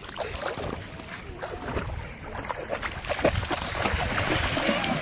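Lake water splashing and sloshing around people playing in it, in many irregular small splashes, with wind noise on the microphone.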